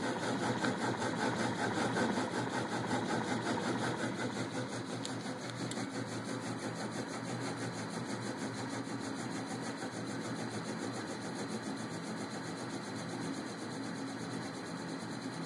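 Stepper motors driving the X and Y axes of a home-built mUVe 3D printer gantry during a motion test: a steady mechanical whir, a little louder in the first few seconds.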